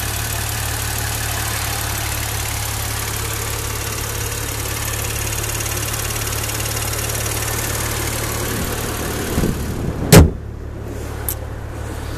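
Maserati Quattroporte S Q4's twin-turbo V6 idling steadily under the open bonnet. About ten seconds in there is a single loud thump as the bonnet is shut, and the engine sound turns muffled.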